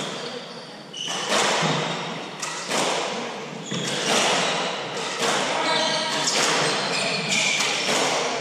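Hardball doubles squash rally: the hard ball smacking off racquets and the court walls, a hit every half second to second.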